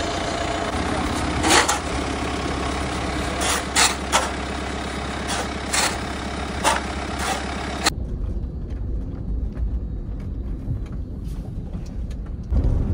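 A heavy vehicle's engine running steadily, with a string of sharp knocks over it. About eight seconds in, the sound cuts abruptly to a duller low rumble.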